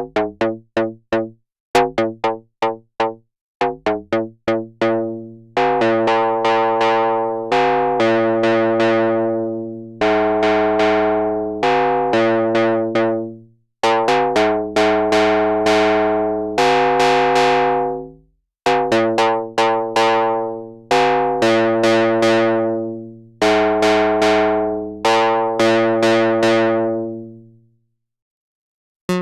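Behringer CRAVE analog synthesizer, a single oscillator through a ladder filter, playing dry with no effects. It plays one note at a time: a run of short, quick plucked notes at first, then from about six seconds in longer held notes whose brightness dies away as each one decays. The notes stop about a second before the end.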